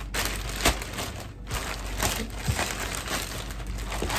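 Thin plastic carrier bag crinkling and rustling as hands pull it open and rummage inside it, with many small sharp crackles.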